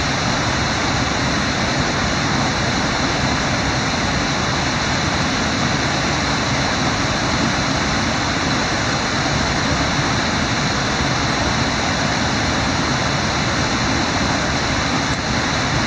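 Steady rush of fast river water running through rapids, an even roar with no breaks.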